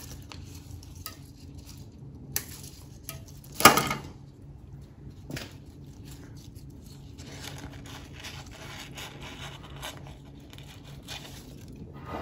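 Handling noise from making a flower arrangement: a few small clicks of floral shears cutting stems, and one sharp knock about four seconds in, the loudest sound. In the second half comes a soft rustling of greenery as stems are pushed into the vase.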